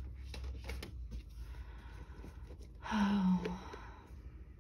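Faint paper and desk handling rustles and clicks, then a brief wordless vocal sound, a sigh, about three seconds in.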